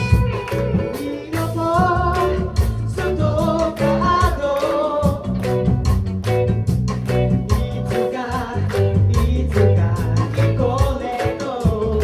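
A live band playing an upbeat song with guitar and a steady beat, and several voices singing the melody together.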